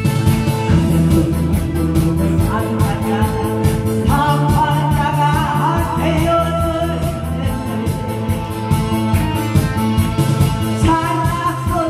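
A woman sings into a microphone over backing music with a steady beat.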